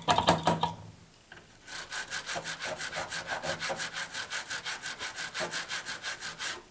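An old toothbrush wet with alcohol scrubbing a freshly soldered model railroad rail joint in quick back-and-forth strokes, about eight a second, from about two seconds in. It is scrubbing off the flux, which would otherwise corrode the joint.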